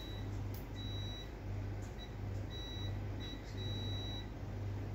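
High-pitched electronic whine that comes and goes in irregular stretches over a low pulsing hum, from an HP LaserJet Pro M226dn laser printer switched on but stuck at startup, failing to initialize, with no engine motor turning.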